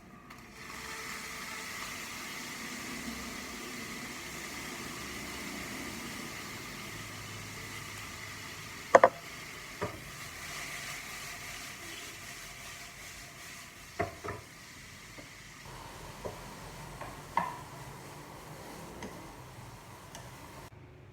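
A steady sizzling hiss with several sharp knocks, the loudest about nine seconds in; the hiss cuts off suddenly near the end.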